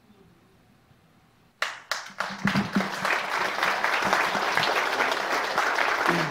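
Church congregation applauding: a second and a half of quiet, then a few scattered first claps that quickly swell into steady applause.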